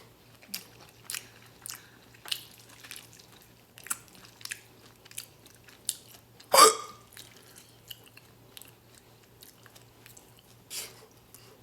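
Close-miked chewing of lo mein noodles, with soft wet mouth clicks scattered through. About two-thirds of the way in comes one loud, short hiccup.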